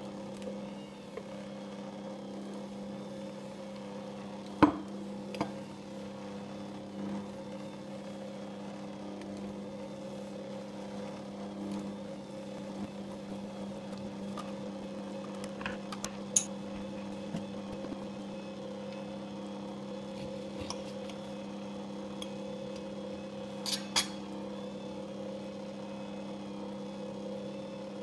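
Electric stand mixer running steadily with a constant hum as it mixes cake batter, with a few sharp clicks of a spoon tapping against the bowl and dishes as ingredients are added.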